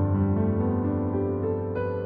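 Background music: slow, soft piano or electric piano with sustained notes changing every half second or so.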